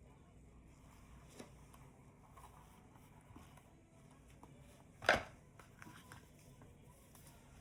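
Quiet handling noises of an unboxing: small clicks and taps, with one sharper knock about five seconds in, as the box and its contents are handled.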